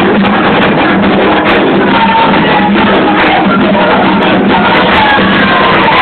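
Loud Candomblé ritual music: hand drumming with a group chanting.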